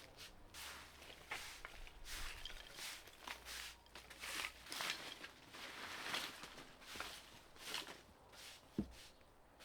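Faint, irregular footsteps, with scuffing and crunching steps coming several times a second at times.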